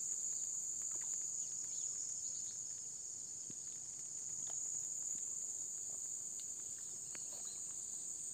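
A steady, high-pitched insect chorus droning without a break, with a few faint scattered ticks.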